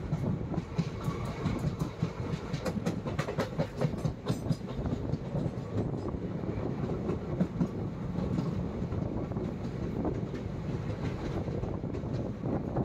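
A train running along the track, with a steady rumble and a quick run of sharp clicks from the wheels on the rails a few seconds in.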